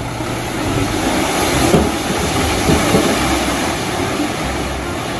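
Dump truck tipping a load of soil from its raised bed: the engine runs while the earth slides and pours out in a steady rush of noise.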